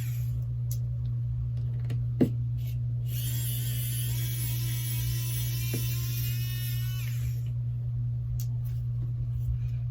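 Small electric screwdriver whining for about four seconds, backing out the tiny screws at the phone's charging port, after a sharp click about two seconds in. A steady low electrical hum runs underneath.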